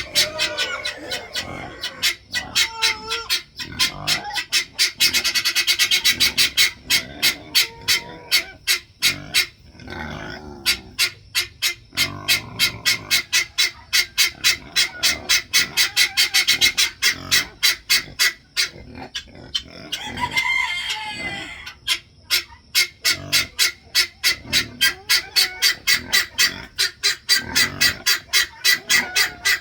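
Chickens clucking and calling, over a fast, regular ticking of about four sharp clicks a second that speeds up briefly a few seconds in.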